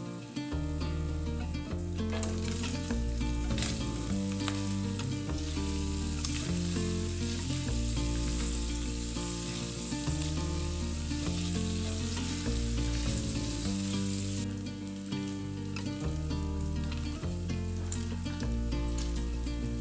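Food sizzling as it fries in a pan, over background music with a stepping bass line. The sizzle is strongest from about two seconds in and drops away abruptly about fifteen seconds in.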